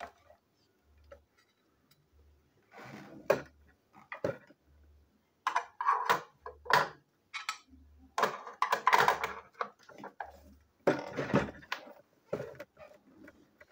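Irregular clicks, rattles and rustling of a plastic toy train engine, its parts and a screwdriver being handled on a hard tabletop, in short clusters that are loudest about two-thirds of the way through.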